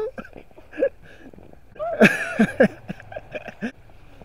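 A burst of short vocal cries, each falling in pitch, about two seconds in, with a fainter cry just before.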